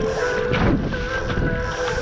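Background music of held, steady notes, over a low rumble of wind on the microphone and the splash of water along a sailing dinghy's hull.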